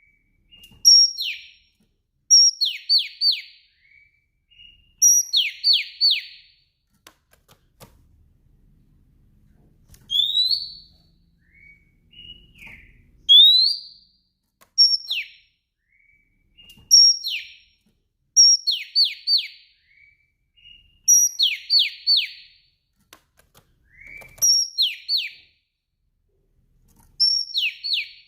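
Female Oriental magpie-robin calling: short phrases repeated about every two seconds, each a brief high note followed by two to four quick falling whistled notes, with a couple of single rising whistles in the middle.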